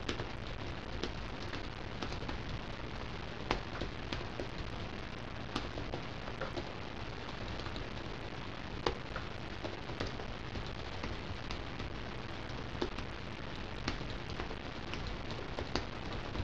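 Typing on a SIIG JK-0612-S1 low-profile scissor-switch keyboard: soft, irregular, thuddy key taps over a steady background hiss. The keyboard sits on padding that damps echo off the table.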